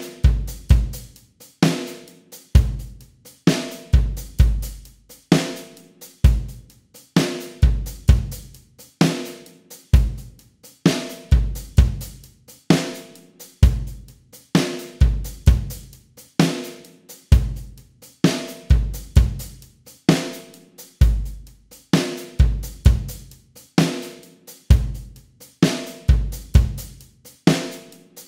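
Sampled drum kit, sequenced in Superior Drummer 2.0, playing a steady 4/4 rock beat at 65 beats per minute as a practice metronome: kick drum, a snare backbeat on every other beat, and hi-hat and cymbal strokes.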